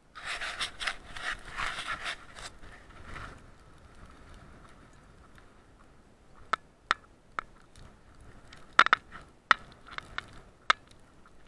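Footsteps crunching through frozen snow and over rock, muffled by the action camera's housing. A thick run of crunching over the first three seconds, then a string of single sharp crunches and clicks in the second half.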